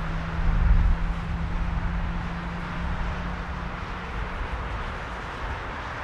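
Jet engines of a twin-engine airliner running on the runway: a steady jet hiss over a low rumble, with a low hum that fades about four seconds in. Wind buffets the microphone in the first second.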